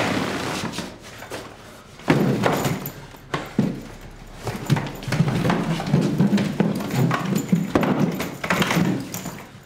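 A wooden chair and a suitcase being handled and set down: a run of knocks, thumps and scrapes that starts sharply about two seconds in.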